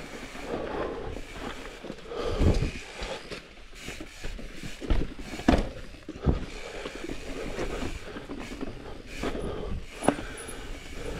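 Mountain bike rolling over rocky trail, with irregular knocks and rattles from the bike and a few louder clunks along the way.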